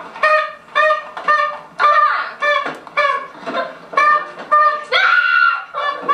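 Paper party horns being blown over and over, short reedy toots about two to three a second, several horns overlapping and some sliding up or down in pitch.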